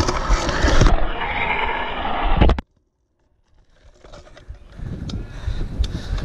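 BMX bike rolling fast on skatepark concrete, the tyres rumbling, with a hard clatter about two and a half seconds in before the sound cuts off. After about a second of silence, quieter rolling with light clicks returns.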